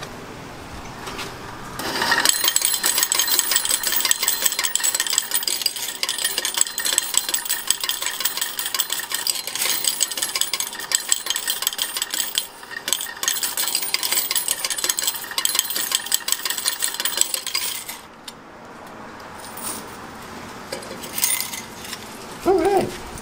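Bill changer paying out quarters into its steel cup: a rapid, continuous clatter of falling coins for about sixteen seconds that stops abruptly. Near the end, coins clink as a hand scoops them out of the cup.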